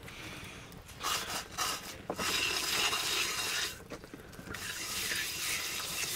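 Scraping and rubbing in two stretches of a couple of seconds each, with a few short knocks.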